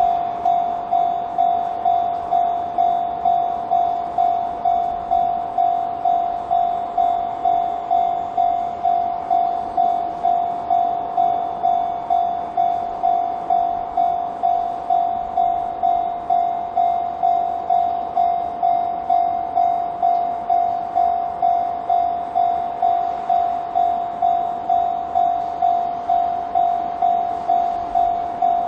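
Japanese railway level-crossing alarm of the "Chichibu" type ringing: a single bell-like electronic tone struck just under twice a second, each strike fading before the next, repeating steadily.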